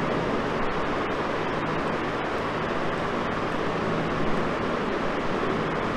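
Steady background noise, an even hiss and rumble with no distinct events.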